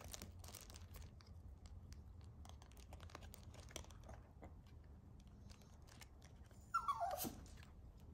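A small dog chewing and mouthing a crinkly plush ice-cream-cone toy, with faint crinkles and small clicks. About seven seconds in, one short, louder squeak slides down in pitch.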